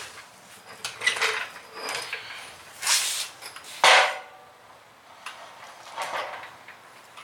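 Irregular clattering and scraping from hand tools and engine parts being handled, with one sharp knock about four seconds in, while a spark plug is refitted and a new plug wire is put on.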